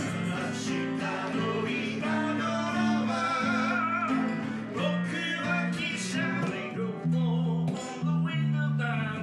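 A live song on two guitars: an acoustic guitar and an archtop electric guitar played through a small amp, with a man singing.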